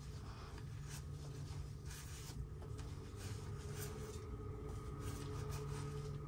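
Cloth rag rubbing pipe dope off newly made-up threaded black-pipe joints on a steam boiler's wet return, in short repeated wiping strokes, over a steady low hum.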